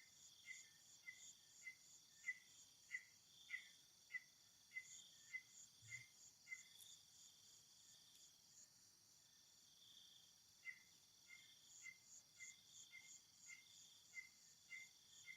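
Faint insect chorus: a steady high buzz with a repeated chirp about twice a second, which stops for a few seconds in the middle and then resumes.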